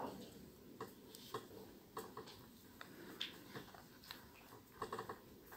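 Faint, irregular small clicks and soft rustles of fingers handling a sewing needle and fine silk thread while stitching needle lace.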